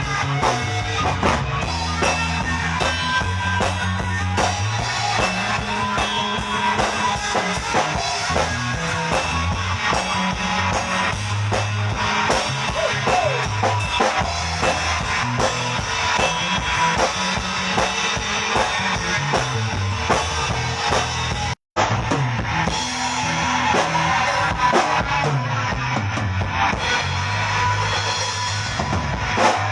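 A band playing an instrumental rock passage: drum kit, a moving bass line and guitar, without vocals. The sound cuts out for a split second about two-thirds of the way through, then the music carries on.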